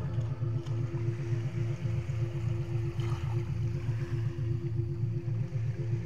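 Low synthesized meditation drone pulsing evenly about three or four times a second (a 3.5 Hz pulse), with a steadier higher tone above it; small sea waves wash faintly on the shore beneath.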